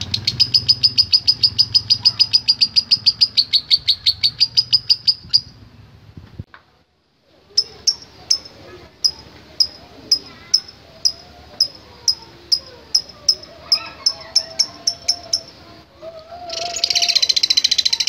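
Fischer's lovebird calling: a fast run of short clicking chirps, about seven a second, the 'ngetik' typing call, which ends about five seconds in. After a short break come single chirps about two a second, then near the end a dense, continuous chattering.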